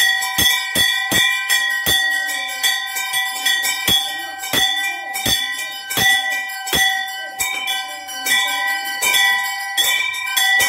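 Temple bells ringing together without a break during the aarti (lamp offering), with a sharp clanging strike every half second to second over a steady ringing tone.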